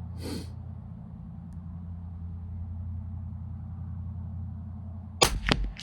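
A steady low hum, then about five seconds in a sharp shot from a CZ 457 LRP bolt-action rifle firing standard-velocity .22 LR, followed a moment later by a second short sharp knock.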